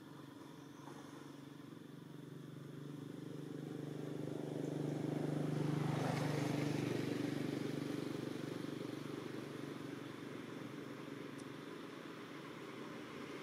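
A motor vehicle's engine passing by, growing louder to a peak about halfway through and then fading away.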